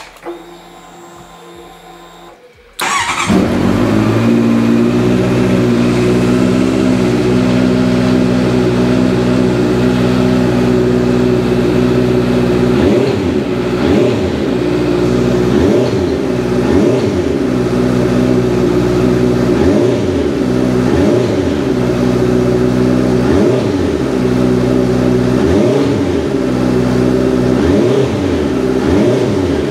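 2018 Honda CB650's inline-four engine starting up about three seconds in and settling into a steady idle. From about halfway it is revved in a string of short blips, its pitch rising and falling about every second or so.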